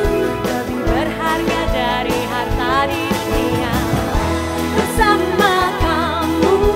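Live pop ballad: a woman singing with vibrato over a violin section and band accompaniment.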